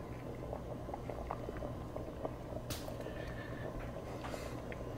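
Pot of beans simmering uncovered on the stove, soft bubbling with small scattered pops over a steady low hum.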